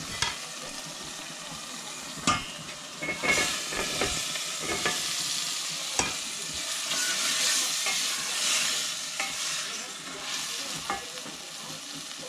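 Food sizzling as it fries in a pan, with a cooking utensil clicking and knocking against the pan several times as it is stirred.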